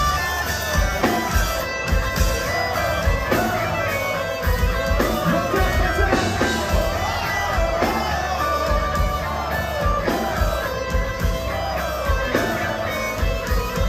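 Metal band playing live through a PA, with distorted electric guitars over steady drum hits and a melody line that bends up and down.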